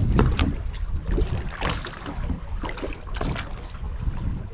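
Wind rumbling on the microphone, with water slapping against a boat's hull in short irregular splashes.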